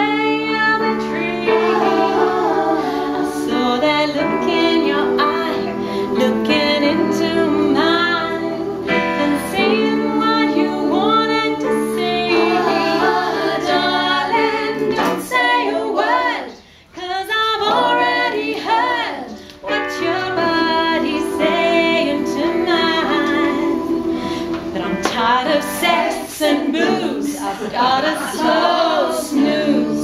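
A women's vocal group singing: a lead voice over held backing harmonies. The sound breaks off briefly a little past halfway, then the singing resumes.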